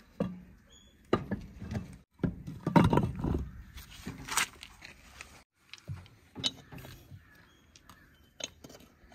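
Heavy steel backhoe wheel rim clunking and scraping against the hub and its wheel studs as the wheel is worked onto the hub by hand, a run of uneven metallic knocks and clinks that is busiest a few seconds in.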